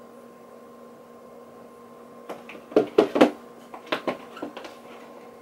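A quick run of sharp clicks and knocks from handling glass perfume bottles and their cardboard presentation box with its moulded insert. The knocks start about two seconds in and come in a short cluster, the loudest few close together near the middle.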